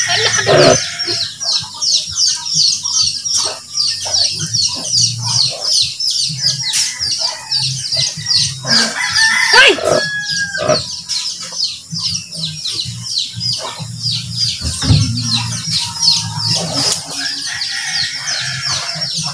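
Rooster crowing about nine seconds in, with chickens clucking, over a continuous fast, high-pitched chirping.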